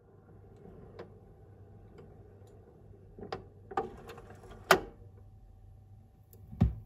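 Sony PS-LX310BT turntable's automatic tonearm mechanism clicking and ticking as the arm swings out over the spinning record, with the loudest click just before five seconds. Near the end a low thump as the stylus sets down on the lead-in groove, over a faint steady motor hum.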